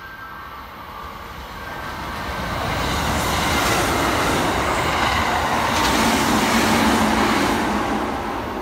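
Kintetsu Osaka Line train passing through the station at speed without stopping. The rumble of wheels on rail builds over the first few seconds, stays loud for about five seconds while the cars go by, then eases off near the end.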